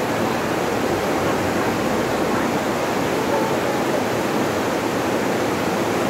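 River rapids rushing, a steady, even noise of fast whitewater.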